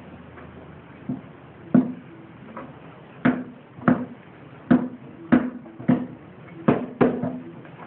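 Knocks and clunks from an old lawn mower engine being worked loose and lifted off its mounting deck. There are about ten sharp knocks at uneven intervals, starting about a second in.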